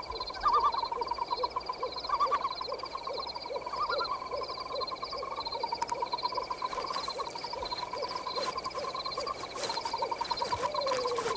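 Night-time forest ambience of animal calls: rapid insect-like chirping trills over a regular low pulsing call about two or three times a second, with a falling call near the end.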